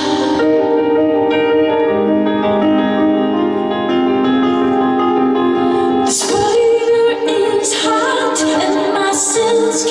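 Live music: a woman singing with piano accompaniment, long held notes for the first several seconds, then the voice comes back in strongly about six seconds in.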